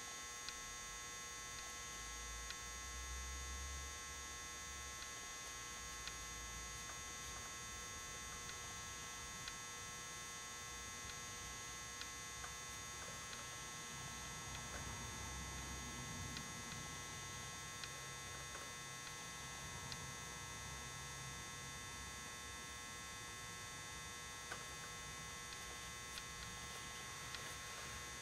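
Faint, steady electrical hum with a thin high whine, with now and then a tiny tick and a soft low rumble.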